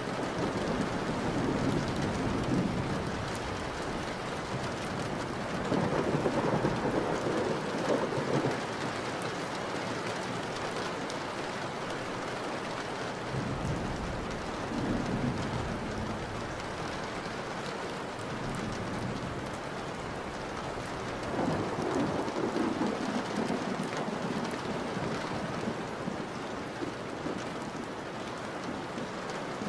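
Heavy rain falling steadily, with rolling thunder swelling up four times, loudest a few seconds in.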